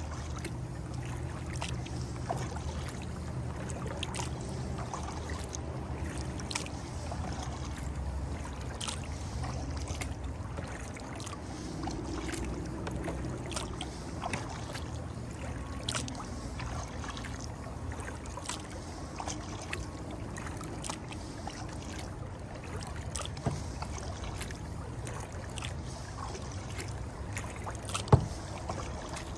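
Kayak being paddled: water dripping and splashing off the paddle blades in many short clicks, over a low steady rumble, with one sharp knock near the end.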